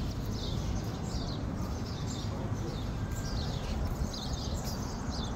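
Birds chirping repeatedly, short high calls that slide downward in pitch, several a second, over a steady low rumble.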